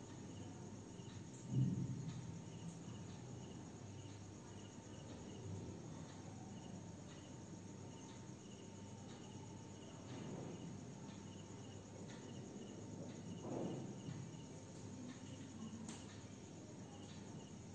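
Cricket chirping in short, evenly spaced pulses over a faint steady hum, with a single thump about a second and a half in.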